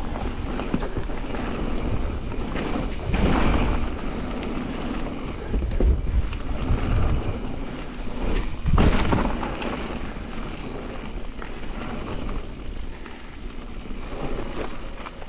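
Wind buffeting the microphone of a mountain bike's on-board camera during a fast descent on a gravel forest trail, over tyre and bike rattle on the loose surface. The wind swells into heavy low gusts about three, six and nine seconds in.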